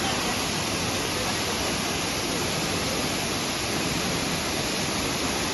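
Waterfall's rushing water, a steady, even noise.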